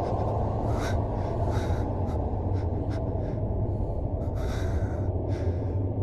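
A person's short, irregular gasping breaths, about seven sharp bursts, over a steady low rumble.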